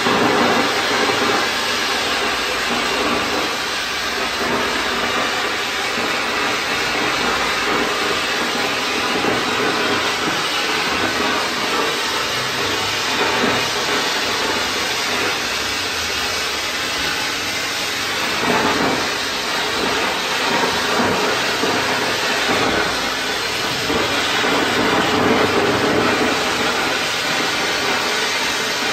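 Handheld sparkler gun burning, with a steady hissing spray of sparks.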